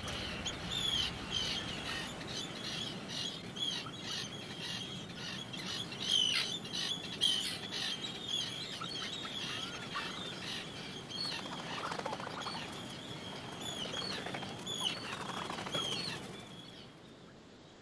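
Seabird breeding colony: a dense stream of short, high calls, some rising or falling in pitch, mixed with the wingbeats of birds flying over. The calling fades away shortly before the end.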